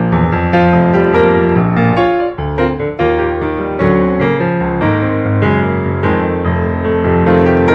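Background piano music: a gentle melody over chords, with notes struck in a steady rhythm.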